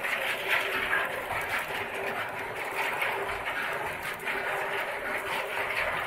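Fried pillow crackers tumbling out of a rotating drum into a plastic tub, a dense continuous rattle of many small dry pieces, over a steady machine hum.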